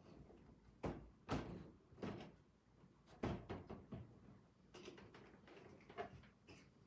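A series of light knocks and clunks from plastic brooder parts being handled and fitted together, about seven in all, the loudest about a second and a half in and again just after three seconds.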